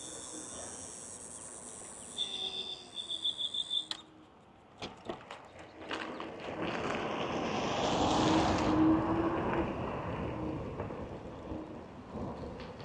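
Wind and tyre rush from a dual-motor electric scooter riding on a street, swelling to its loudest about eight to nine seconds in as the scooter picks up speed again. About two seconds in comes a rapid run of high beeps lasting roughly two seconds.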